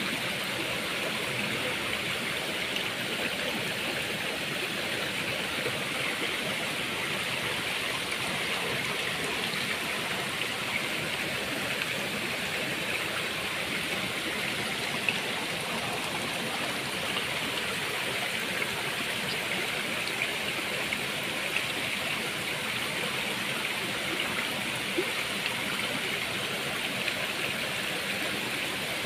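Small rocky stream rushing and splashing over stones in a steady, unbroken flow, with a few faint ticks scattered through it.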